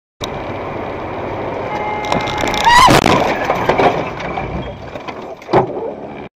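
Car collision heard from a dashcam: steady road noise, a held tone and a brief rising squeal, then a loud crash about three seconds in, followed by rattling and knocking debris. Another sharp knock comes near the end.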